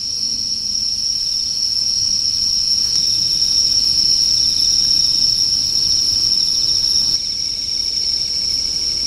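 Crickets trilling in a steady, high-pitched chorus.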